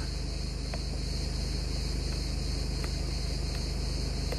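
Van engine idling steadily, with a high, steady chirring of crickets over it and three faint clicks of steering-wheel menu buttons.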